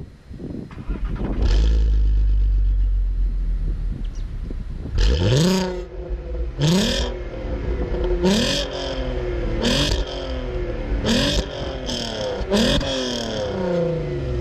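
The 3.2-litre naturally aspirated VR6 V6 of a 2008 Mk5 Volkswagen Golf R32, heard close at its twin centre exhaust pipes. It idles, then is blipped six times, each rev rising sharply and falling back, about one every second and a half.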